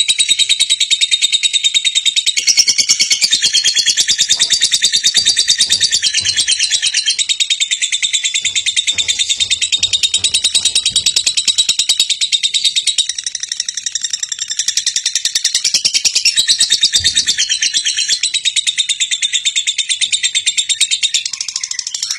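Birds chirping: a dense, continuous high-pitched chorus of rapid chirps.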